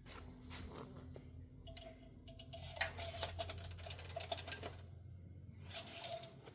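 Light clicks, rattles and rubbing as the engine oil dipstick is pulled, wiped and checked. The clicking comes in two clusters, a longer one through the middle and a short one near the end, with a brief squeak in each.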